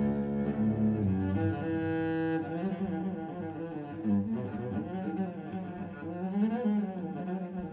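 Cello playing a melody with the bow: a long held note about two seconds in, then notes sliding up and down.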